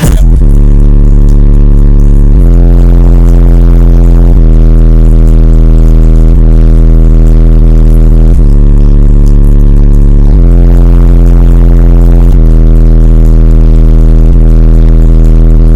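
Very loud, deep sustained bass notes from bass music played through a competition SPL car audio system's subwoofers, heard inside the car. The long low notes shift pitch a couple of times.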